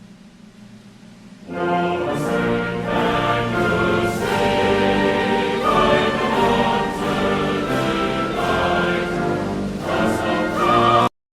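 A choir sings an anthem with instrumental accompaniment. It comes in about a second and a half in and cuts off abruptly near the end.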